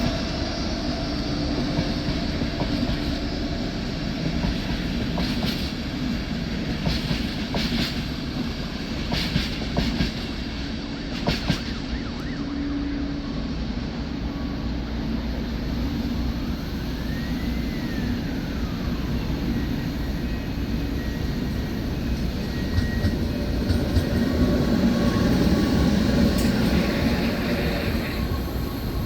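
A train running on the rails with a steady rumble and a few sharp clicks of wheels over rail joints. A whine rises and then falls about two-thirds of the way through.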